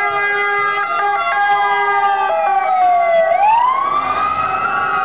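A siren wailing, its pitch sliding slowly down for about three seconds, then climbing again and starting to fall near the end. Several steady held tones sound along with it.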